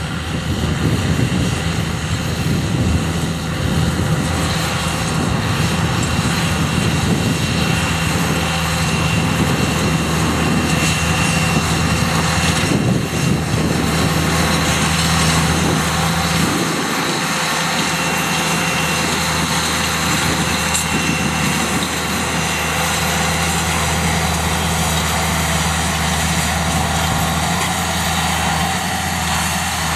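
Case IH Magnum 335 tractor's diesel engine running steadily under load as it pulls a seed drill through the soil. The deepest part of the rumble drops away a little past halfway.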